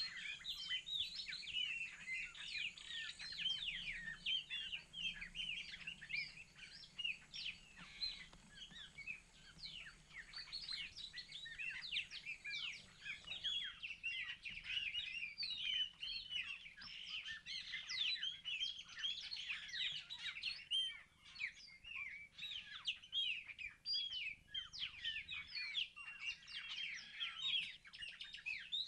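A dense chorus of many birds chirping continuously, a rapid overlapping mass of short, high calls.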